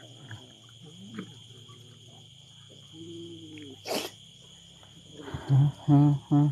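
Domestic cats growling and yowling while they crowd over fish scraps: a low drawn-out growl about three seconds in, a sharp click a second later, then a run of short, loud yowls near the end.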